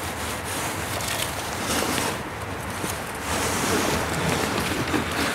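Wind noise on clip-on microphones, with some rustling and handling noise.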